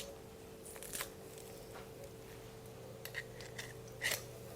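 A few short crunches and clicks of garlic cloves being squeezed through a garlic press, over a steady low hum.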